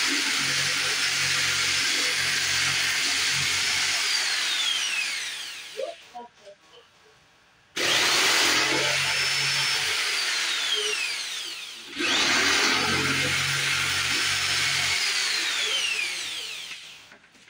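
Handheld electric power saw cutting a wooden countertop board, run three times; each run starts suddenly and ends with the motor's whine falling as the blade winds down.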